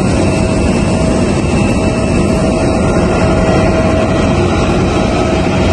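Jet airliner noise on an airport apron: a loud, steady rumble with a constant whine held throughout.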